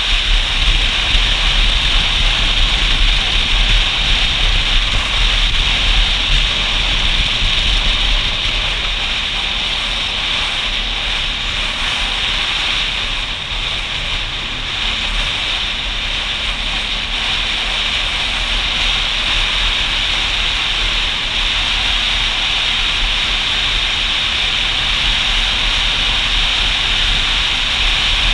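Riding motorcycle: a steady rush of wind over the camera's microphone with road and engine noise beneath it, easing a little for a stretch in the middle, then steady again.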